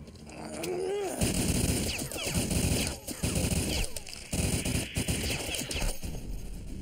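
Cartoon sound effect of rapid, crackling bursts like gunfire, accompanying a surge of green supernatural energy, with a few sweeping whooshes. It sets in about a second in, after a short wavering cry, and breaks off briefly twice.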